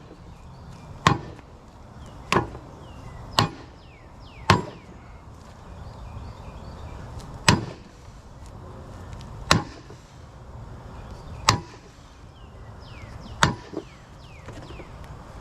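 Heavy hammer blows on the seized bronze gear of a Tulsa 34 winch, about eight sharp metallic strikes spaced one to three seconds apart, each ringing briefly, driving the stuck gear inward to work it loose from its shaft.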